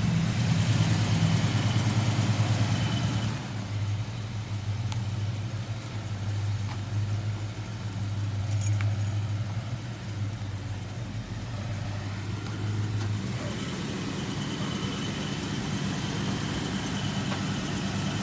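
1969 Dodge Charger's engine idling, a steady low rumble that gets somewhat quieter after about three seconds.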